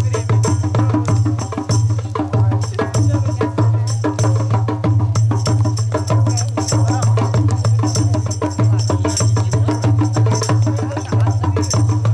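Music with fast, steady drumming and percussion.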